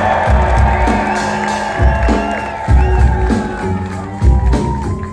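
Live band playing an instrumental passage: a loud, repeating low bass riff with drums under sustained higher keyboard-like tones.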